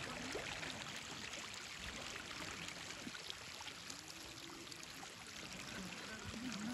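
Shallow river running over a stony bed: a steady rush of rippling water.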